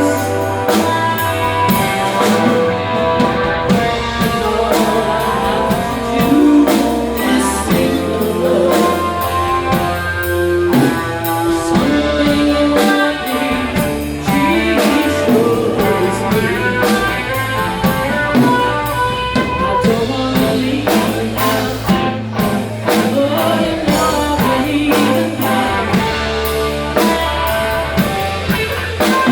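A rock band playing a song at a sound check: guitar and drum kit, with a voice singing.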